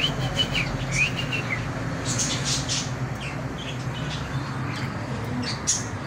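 Small pet parrots, lovebirds, chirping: a few short arched calls in the first second and a half, then sharper, higher chirps around two to three seconds in and again near the end.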